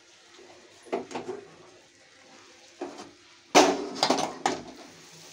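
Cookware clattering as a butter tadka is tipped from a small pan into a pot of dal and stirred in with a wooden spoon: a few clinks and scrapes about a second in and near three seconds, then a louder cluster of knocks shortly after.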